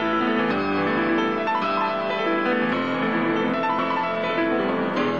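Recorded rock music led by piano, playing a busy run of notes over chords near the opening of the track.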